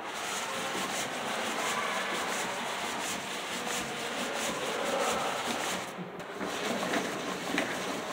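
Hand-cranked cardboard automata running: cardboard and wooden moving parts rubbing and scraping steadily as the cranks turn, with a short break about six seconds in and a few sharp clicks near the end.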